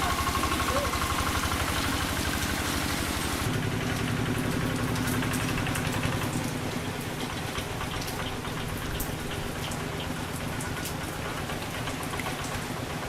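Quick G3000 Zeva two-wheel tractor's diesel engine running steadily, with rain hissing and dripping around it. The engine's tone changes abruptly a few seconds in.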